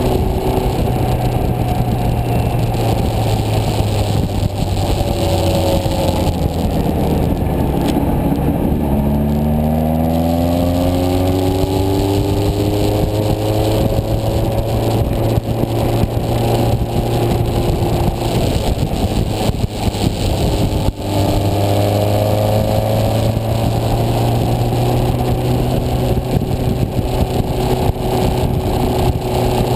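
Motorcycle engine running under way, heard from the rider's seat over wind noise. About a third of the way in the engine note drops as the bike slows, then climbs again as it picks up speed.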